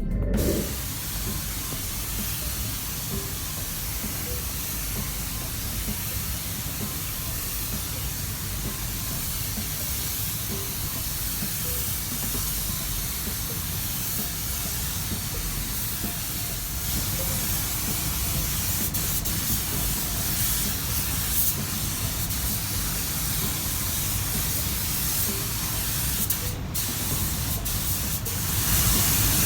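Compressed-air spray gun hissing steadily as coating is sprayed onto the car, a little louder about halfway through, with a very short break near the end.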